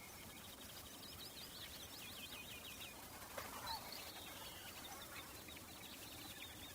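Small birds chirping in quick repeated trills over a steady background hiss, with a louder sweeping call about three and a half seconds in.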